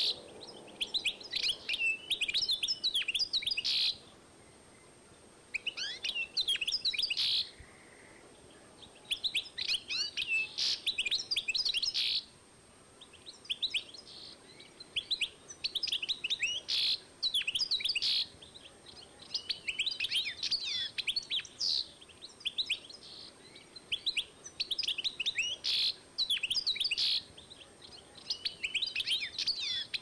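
European goldfinch × canary mule nestlings begging while being hand-fed from a syringe: bursts of rapid, high-pitched chirping, each one to three seconds long, repeated with short pauses between.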